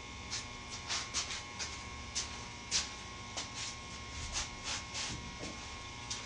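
Irregular light ticks and rustles, about two a second, over a faint steady electrical hum.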